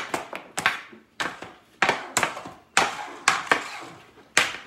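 Hockey stick blade knocking a puck across a plastic stickhandling board: a string of sharp clacks at uneven spacing, about two a second.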